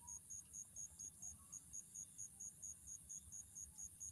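Faint, steady cricket chirping: a high-pitched pulse repeating about six times a second, over a low background hum.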